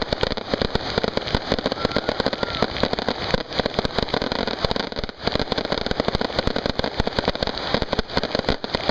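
Fireworks going off in a rapid, continuous barrage of bangs and crackles, with brief lulls about three and a half and five seconds in.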